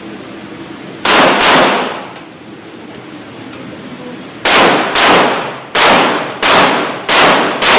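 Rifle shots with echoing tails: two about a second in, then a quick string of six about two-thirds of a second apart.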